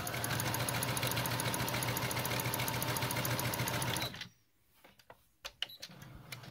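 Brother FS101 computerised sewing machine sewing a long straight stitch at its maximum stitch length of 5, the basting stitch used for gathers: a steady motor hum with a fast, even needle ticking. It stops abruptly about four seconds in, and a few light clicks follow.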